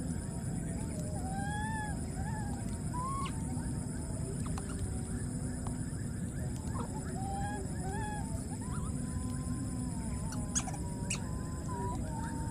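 Baby macaques giving short, arching coo calls, a few scattered through the first eight seconds, then a longer, level call from about nine seconds in. A constant low rumble runs underneath.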